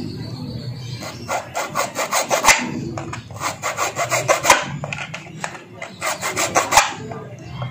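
Three-square (triangular) file scraping back and forth across the steel blade of a cockfighting gaff, cutting a groove into it. The strokes come quick and even, in three runs with short pauses between.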